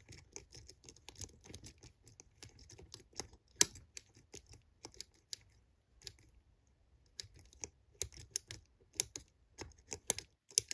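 Steel lever pick and tension tool clicking and scraping against the levers inside a four-lever Master Lock 55 mm padlock as the back levers are picked under heavy tension. Irregular sharp metallic ticks, one loud click about three and a half seconds in, a short lull past the middle, then quicker clicking.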